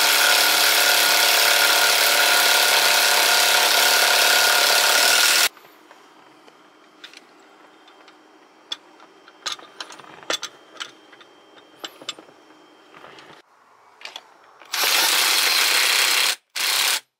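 Air-powered wrench tightening the seat-belt anchor bolts: one steady run of about six seconds, then small clicks and handling noises, then a second run of about a second and a half and a brief final burst near the end.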